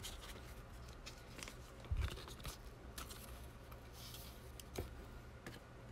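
Faint handling of trading cards and a cardboard card box: soft taps and light rustling, with a slightly louder tap about two seconds in.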